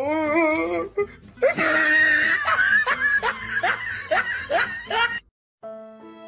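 A person laughing hard in quick, repeated bursts, stopping abruptly about five seconds in. After a short silence, soft violin music begins near the end.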